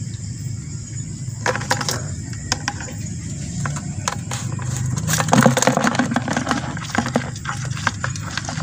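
Irregular clicks, crackles and rustling from people moving and handling things at the river's edge, louder in two clusters, near the start and just past the middle. Behind them is a steady high insect chorus and a low rumble.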